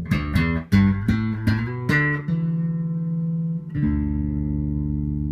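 Rickenbacker 4003 electric bass with toaster and horseshoe pickups, played through a bass amp and 4x10 cabinet: a quick run of about eight plucked notes, then a note held and a second note struck about four seconds in and left ringing.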